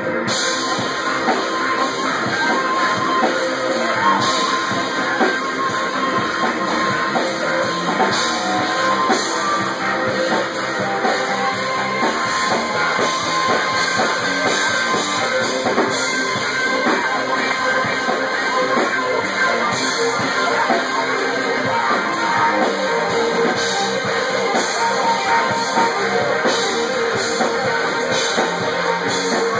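Live band playing rock music with guitar and drum kit, steady and loud, picked up by a smartphone's built-in microphone.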